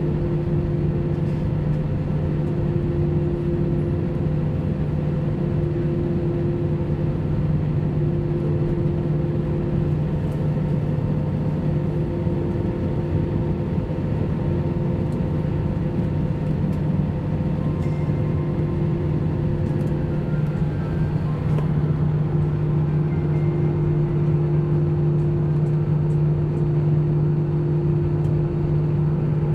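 Cabin noise of an airliner taxiing, heard from inside: the jet engines' steady drone with a constant hum, getting slightly louder about two-thirds of the way through.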